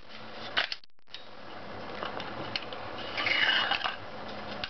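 Metal parts of an HK416 D .22LR rifle being handled: a few sharp clicks about half a second in, then a louder metallic scraping slide about three seconds in, as the charging handle and bolt carrier are pulled out of the upper receiver.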